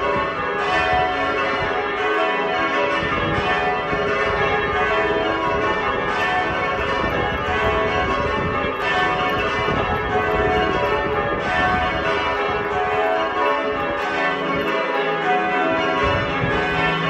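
A ring of six heavy church bells (tenor about 18 cwt, in E) being rung down: the bells sound one after another in a steady, overlapping run of strokes as they are lowered from the up position.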